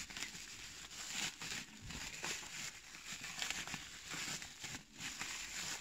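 Bubble wrap being handled and pulled open by hand: steady crinkling and rustling of plastic with many small crackles.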